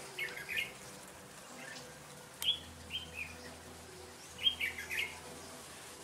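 Red-whiskered bulbul singing: about four short phrases of a few quick notes each, spaced roughly a second apart.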